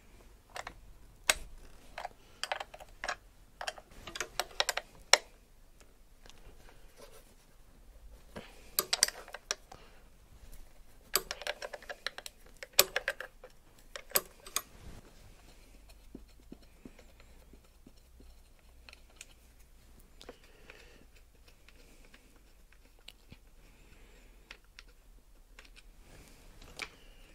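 A 10 mm wrench clicking and clinking against the cover bolts of a Volvo Penta 31/41-series diesel engine as they are undone. The clicks come in quick bursts through the first half, then thin out to a few faint ticks.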